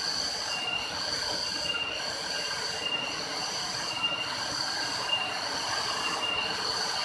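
A shrill insect chorus, typical of cicadas, pulsing about once a second in high ringing tones, over a steady rush of water from the nearby waterfall.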